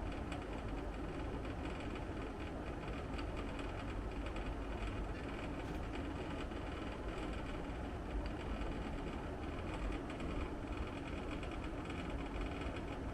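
Split air conditioner indoor unit running: a steady blower-fan noise with a fine rattling buzz from the vibrating casing.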